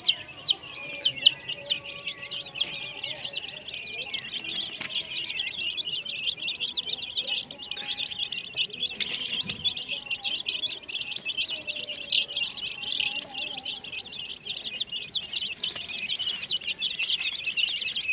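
A brood of baby chicks peeping nonstop, many short high peeps overlapping into a constant chorus, with a hen's faint low clucks underneath.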